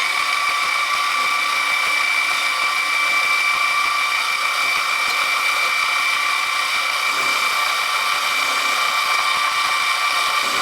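Milling machine running and cutting a brass bracket blank down to a scribed line: a steady, high-pitched whine from the spindle and cutter.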